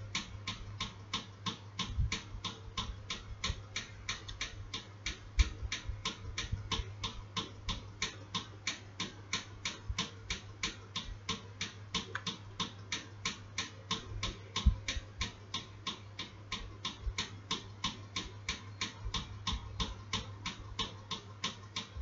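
Fast, perfectly even ticking, about three to four ticks a second, over a low steady hum, with a couple of brief louder knocks.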